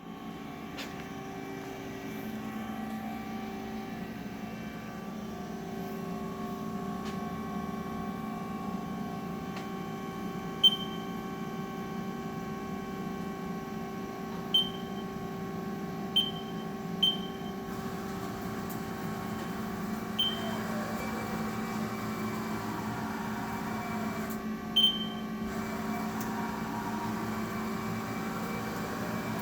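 A Haas ST-20 CNC lathe, powered up, gives a steady electrical and mechanical hum with several held tones. Over it come six short high beeps, typical of the Haas control's keypad being pressed.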